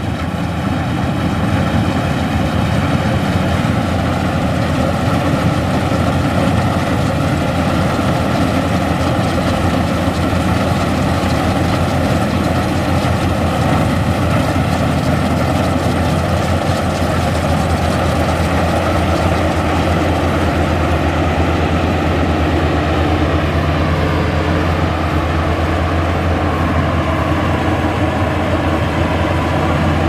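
Crawler rice combine harvester running steadily while cutting and threshing, a continuous engine and machinery hum that grows deeper in the last third as the machine comes close.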